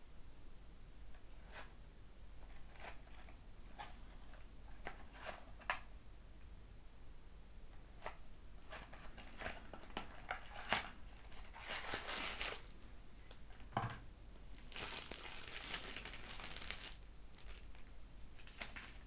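Small cardboard knife box being handled and opened: scattered light taps and clicks, a thump about two-thirds of the way through, and two stretches of rustling packaging, the longer one near the end as the knife comes out.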